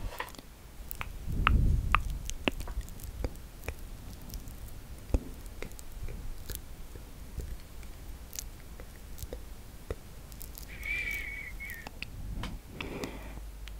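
Brush dabbing thick, wet chocolate face mask close to the microphone: scattered sticky clicks, with a few low handling thumps about a second and a half in and a short high squeak near the end.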